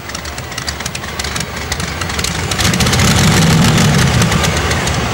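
Modified pulling tractor's multiple engines idling with rapid crackling from the exhaust, then getting louder and heavier from about two and a half seconds in as they are revved.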